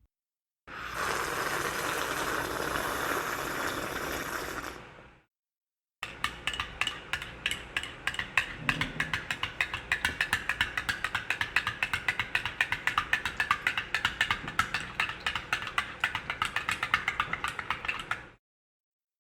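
A few seconds of steady hissing, then after a short gap a long run of fast, evenly spaced mechanical clicks, several a second, from a ratcheting mechanism.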